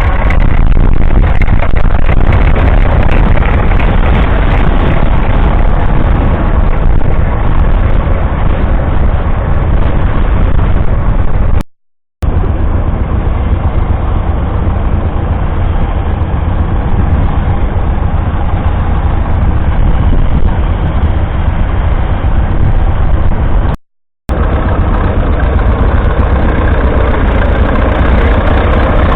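Vintage farm tractor engines running steadily while ploughing, heard in three stretches split by two short silent cuts.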